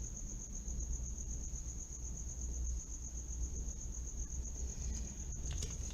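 A steady high-pitched trill with a fast, even pulse, over a low hum.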